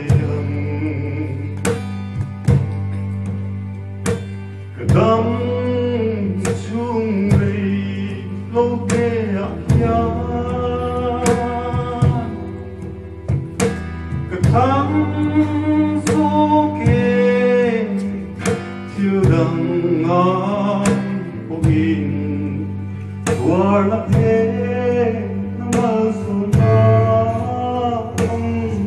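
A man singing a solo song through a microphone and PA, with a wavering held melody, over live accompaniment of sustained keyboard chords, guitar and regular percussion strikes.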